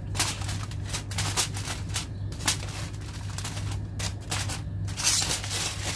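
Aluminium foil crinkling and crackling in quick irregular bursts as the foil cover of a baking pan is handled and peeled back, over a steady low hum.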